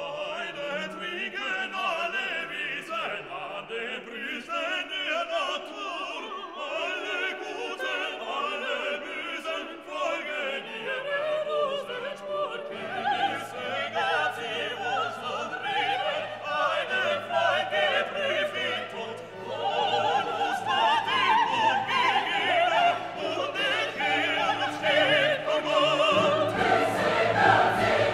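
Background music: operatic classical singing with orchestra, voices holding wavering sung notes. Deeper bass notes join about halfway through, and the music grows louder toward the end.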